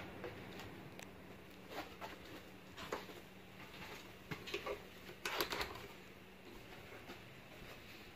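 Faint clicks and knocks of a refrigerator door's latch and handle being worked and the door opened, over a faint steady hum that stops a little past halfway.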